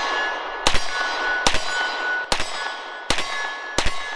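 Sig M400 AR-style rifle fired five times in slow, steady succession, about one shot every 0.8 s, with a metallic ringing hanging between the shots.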